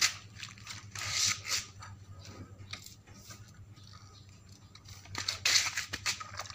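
Short scratchy rubbing and handling noises in a few bursts, about a second in and again near five seconds, with quieter stretches between.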